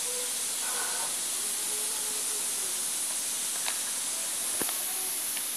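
Steady high hiss, with two light knocks near the end about a second apart, the second one duller.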